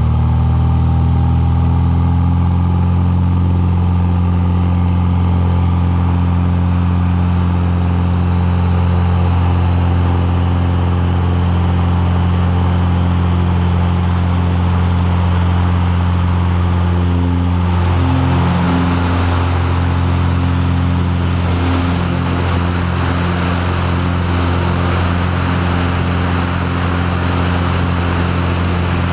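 Light single-engine propeller airplane's engine running steadily at takeoff power through the takeoff roll, its pitch coming up a little at the start. About two-thirds of the way in, a rushing airflow noise builds over the engine drone as the plane lifts off and climbs.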